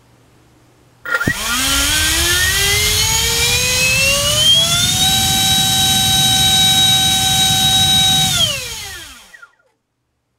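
60 mm five-blade electric ducted fan driven by a GoolRC 2850 4450 kV inrunner on a 3-cell pack. It spools up about a second in, its whine and air rush rising steadily in pitch to full throttle, drawing about 40 A and 460 W. It holds there for about three seconds, then winds down and stops near the end.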